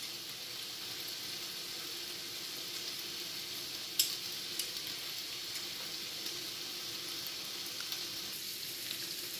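Bacon strips frying on a griddle at moderate heat, a steady sizzle of fat just getting going, with occasional small pops. The sharpest pop comes about four seconds in.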